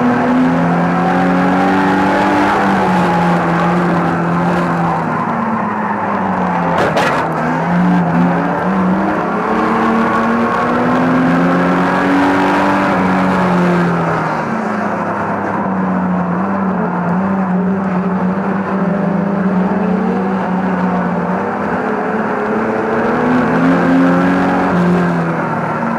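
A banger racing car's engine heard from inside the cabin, its pitch rising and falling every few seconds as the throttle opens and closes. There is one sharp knock about seven seconds in.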